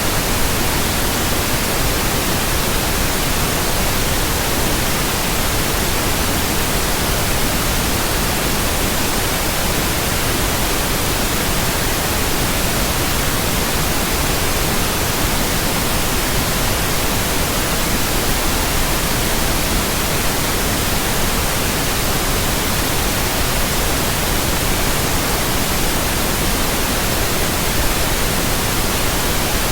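Steady, unchanging white noise: an even hiss spread across all pitches from deep to very high, with no tones or events in it.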